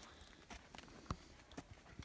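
Faint rustling of large dry leaves with a few soft, scattered taps, about four in two seconds, as of footsteps and leaves being brushed.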